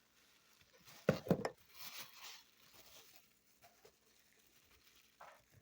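Packaging being opened and handled by hand: a few sharp knocks about a second in, then rustling, with small ticks and clicks after.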